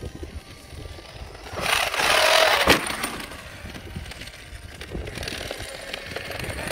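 Traxxas X-Maxx RC monster truck driving on grass, its damaged differential crown and pinion gears clattering. A loud burst of noise comes about two seconds in and ends in a sharp knock.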